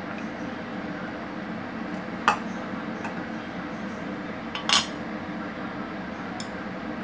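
Two sharp clinks on a stainless steel mixing bowl, about two and a half seconds apart, while fish is dredged in cornstarch in it. Under them runs a steady low hum.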